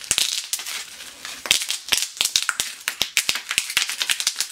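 Small bubble wrap twisted and wrung between the hands, many bubbles popping in quick, irregular runs of sharp pops, thickest in the second half.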